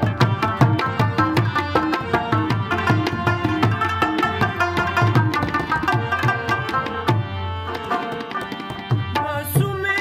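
Tabla and harmonium playing an instrumental passage of a Pashto folk song, the tabla keeping a quick, dense rhythm over sustained harmonium chords. A man's voice comes in singing near the end.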